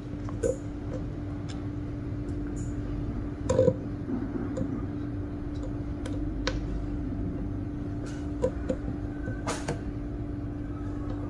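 Steady low hum with a few scattered small clicks and knocks, the loudest a little after three and a half seconds, as an ultrasonic probe is handled and shifted on a steel calibration block.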